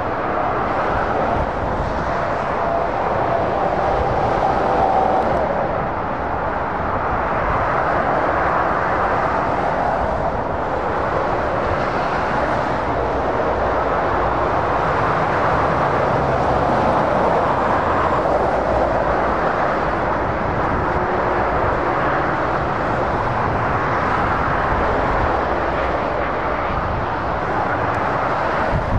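Steady motorway traffic noise: tyre roar and engines of lorries and cars going by at speed, swelling and easing slightly as vehicles pass.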